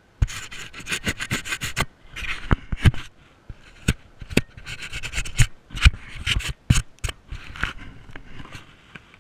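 Gloved hand rubbing, scraping and knocking on a helmet-mounted action camera: loud handling noise of sharp clicks and scrapes coming in irregular bouts.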